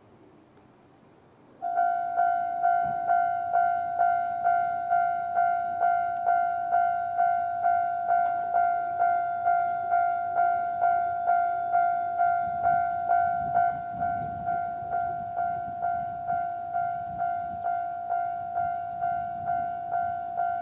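Japanese railway level crossing's electronic alarm starting up about two seconds in, then ringing a steady two-tone 'kan-kan' about twice a second. It drops a little in volume around fourteen seconds in.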